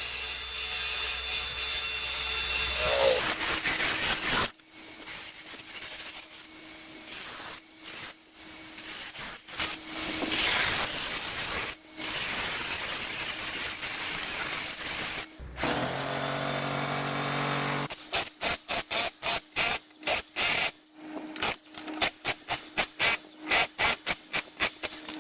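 Power-tool work cutting into a tiled bathroom wall to channel it for water pipes, in a few abrupt segments. First there is a loud motor running, then noisy cutting with a steady tone, then a short steady motor whine, and near the end a fast run of sharp strikes.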